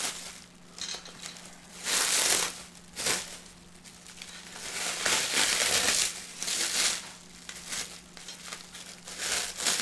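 Black plastic wrapping crinkling and rustling as it is handled and pulled off a packed lamp, in repeated spells that are loudest about two seconds in and again from about five to seven seconds in.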